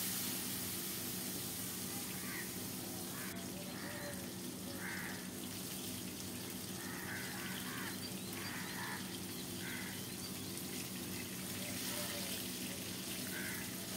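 Koral (barramundi) fish pieces shallow-frying in hot oil in an aluminium kadai: a faint, steady sizzle.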